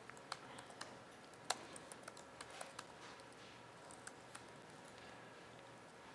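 Faint, irregular keystrokes on a laptop keyboard, most of them in the first three seconds and only a few after that, over quiet room tone.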